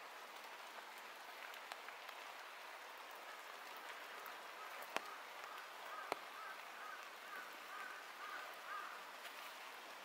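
Light rain on the forest canopy and leaf litter, a faint even hiss with scattered drips. There are two sharper taps about five and six seconds in. From about halfway to near the end a bird calls faintly in a run of short repeated notes.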